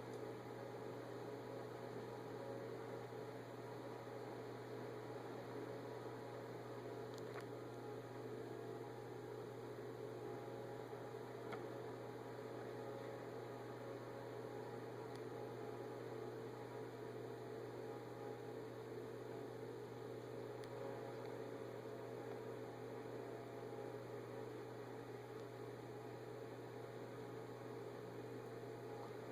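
Steady low electrical hum with faint hiss, unchanging throughout, and a couple of very faint ticks.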